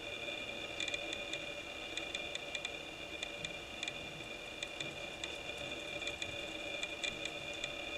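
Steady background hum with a held high whine, and faint irregular ticks from handling as thread is wrapped onto the fly at the vise.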